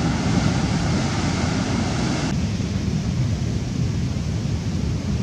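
Wind buffeting the microphone over the steady rush of rough surf, mostly a low rumble. The higher hiss drops away about two seconds in.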